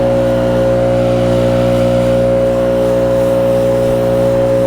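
An engine running at a steady, unchanging speed, giving an even, constant pitch.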